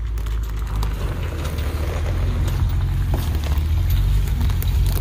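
Dump truck engine running with a steady low rumble that grows slightly louder, with light crackling over it.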